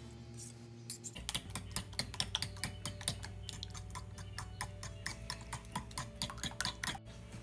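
Eggs and cream being beaten with a metal spoon in a glass bowl: a quick, even clicking of spoon against glass, about five strokes a second. The clicking starts about a second in and stops suddenly near the end.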